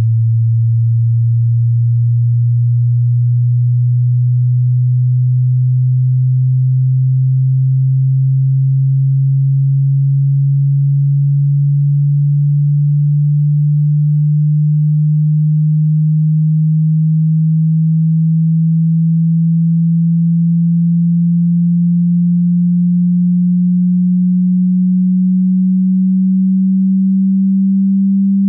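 Hearing-test sine tone sweeping slowly upward in pitch, a single low hum at steady loudness that climbs gradually, with a slight dip every five or six seconds.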